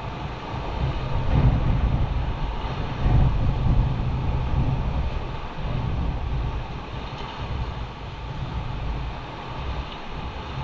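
Low, surging rumble of wind buffeting the microphone, mixed with surf washing over the rocks; it swells loudest between about one and four seconds in.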